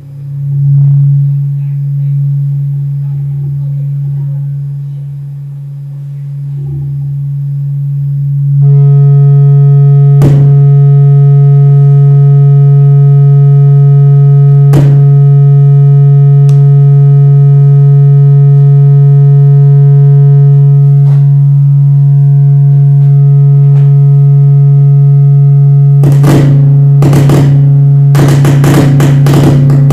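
Electronic drone music played through loudspeakers: a loud, steady low sine-like tone, joined about nine seconds in by a chord of steady higher tones. Two single sharp clicks cut through it, followed by a rapid flurry of clicks and glitches near the end.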